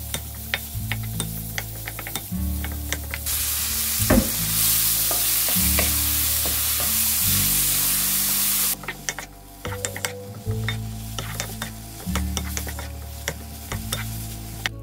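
Pork and kimchi stir-frying in a stone-coated pan: a wooden spatula scrapes and taps the pan over a sizzle. The sizzle turns loud for about five seconds from roughly three seconds in, as the kimchi hits the hot pan, with a knock about four seconds in. Soft background music plays underneath.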